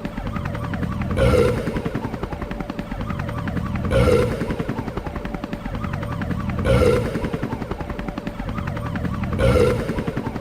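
Burping: a continuous low, rattling burp sound that swells to a louder, pitched onset about every 2.7 seconds, four times over, repeating at very even spacing.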